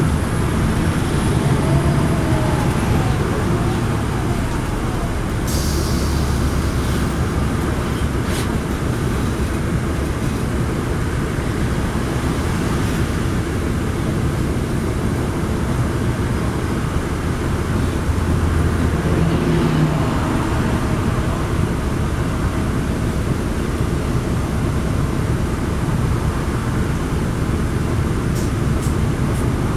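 Cabin noise inside a NABI 40-SFW transit bus cruising on a highway: its Cummins ISL9 diesel engine running steadily under road and tyre noise, with a few faint clicks.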